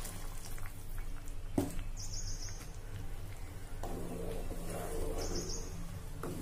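Wooden spatula stirring thick curry in a clay pot, with a low steady hum underneath. A bird chirps briefly twice, about two and five seconds in.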